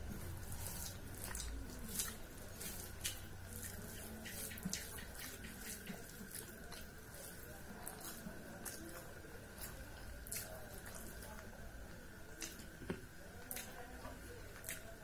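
Eating by hand: irregular soft wet clicks and smacks from chewing, and from fingers mixing rice and curry on a steel plate, over a faint steady high hum.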